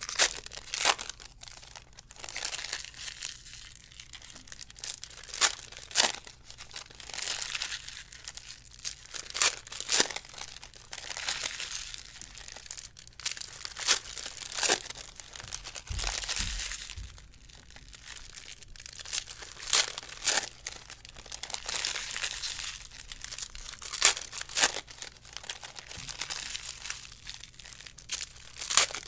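Foil wrappers of baseball card packs crinkling and tearing as the packs are opened, with repeated sharp clicks and snaps from the cards being handled and stacked.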